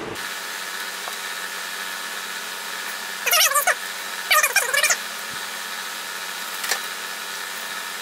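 Workshop sound played back at four times speed: a steady high-pitched hum and hiss. It is broken twice in the middle by short, squeaky chipmunk-like bursts of sped-up voice, and a brief click comes near the end.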